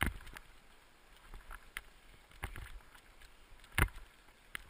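Dog-drawn scooter rolling over a rough, muddy track: a low rumble from the tyres with scattered knocks and rattles from the frame, and one sharp knock about four seconds in.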